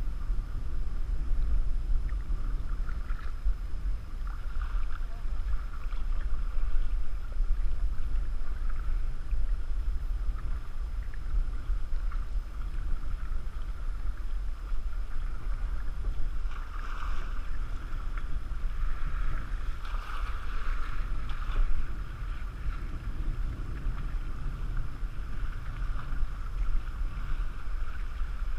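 Wind buffeting the microphone with a steady low rumble, over water lapping and splashing against a canoe as it is paddled through choppy lake water. There are brighter splashes about 17 and 20 seconds in.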